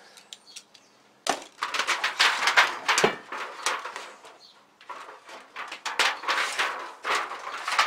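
Thin aluminium oven-liner sheet crinkling and tearing as it is pulled apart along a knife-cut line: dense crackling starting about a second in, a short lull, then a second spell of crackling from about five seconds.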